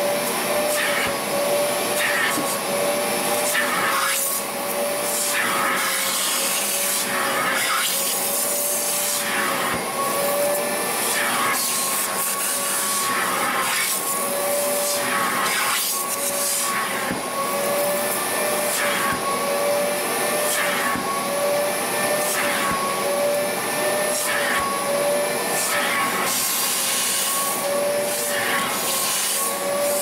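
Wet-extraction upholstery vacuum running with a steady, slightly wavering motor whine, its nozzle drawn across the fabric seat in repeated strokes. Each stroke brings a surge of rushing suction every second or two as it pulls water and dirt out of the seat.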